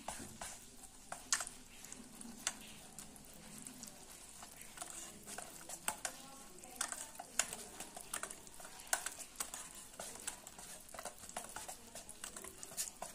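Wire whisk beating a thick semolina and curd batter in a stainless steel bowl: faint wet stirring with irregular clicks of the wires against the bowl.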